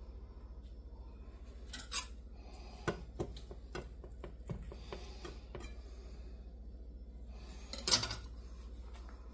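A metal knife and pan clinking and tapping as a cooked frittata is cut in a nonstick frying pan. There are two sharp ringing clinks, one about two seconds in and one near the end, with a run of lighter clicks and taps between them, over a steady low hum.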